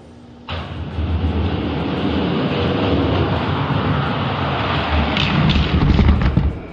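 Two Hot Wheels die-cast monster trucks rolling down an orange plastic race track. A steady rumble of their wheels on the track starts suddenly about half a second in, gets louder as they reach the bottom, and stops near the end.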